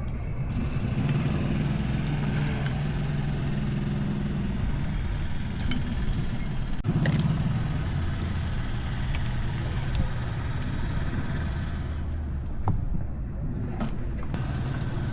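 A motor vehicle's engine running steadily, a low rumble that eases off near the end, with one sharp click about seven seconds in.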